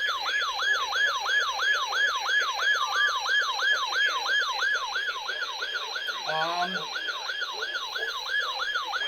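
Electronic yelp siren rapidly wailing up and down about three times a second, sounding as the alert signal ahead of a severe thunderstorm warning. A short, lower electronic blip cuts in about two-thirds of the way through.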